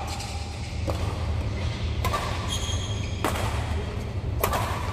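Badminton rally: racket strings striking the shuttlecock four times, about once every second, over a steady low hum.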